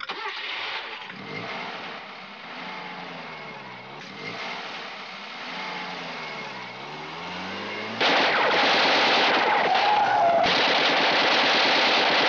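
Automatic gunfire: a long, loud, continuous burst of rapid shots that starts suddenly about eight seconds in. Before it, a quieter steady rumbling noise with slowly sweeping tones.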